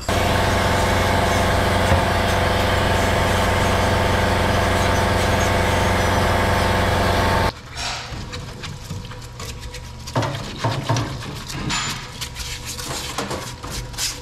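A machine running with a loud, steady hum, cut off suddenly about seven and a half seconds in. Then come irregular scrubbing, scraping and knocking as a motorcycle primary case is brushed clean in a parts-washer tub.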